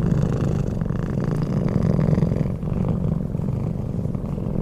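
A domestic cat purring steadily: a continuous low rumble with a fast, even pulse.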